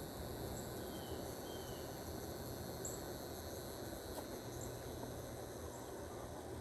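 Outdoor garden ambience: insects trilling steadily at a high pitch, with a few short faint chirps.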